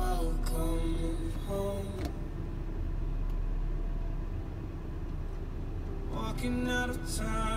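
Steady low rumble heard inside a car's cabin. A song with singing plays for the first two seconds, breaks off, and comes back about six seconds in.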